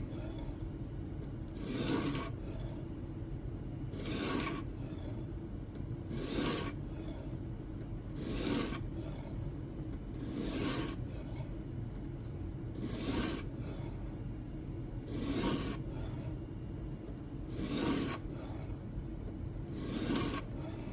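Diamond sharpening plate on a guided rod sharpener being pushed across the edge of an N690 steel knife blade, a rasping stroke about every two seconds, around ten strokes in all. These are the first set of ten swipes on one side while reprofiling the bevel.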